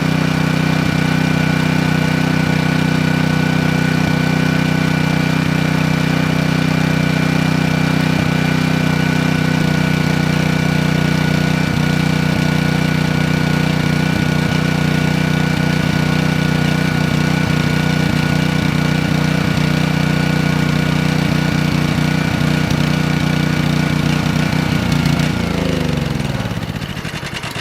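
Black Max 3000-watt portable gas generator's engine running steadily, then winding down and stopping near the end.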